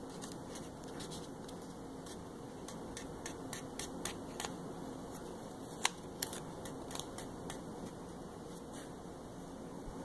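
Faint crinkling and scattered small clicks of a vinyl decal's transfer tape and backing paper being handled and pressed down with the fingertips, over a low steady room hum.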